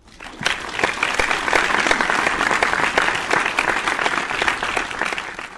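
Applause from a crowd, a dense patter of clapping that fades in at the start and fades out near the end.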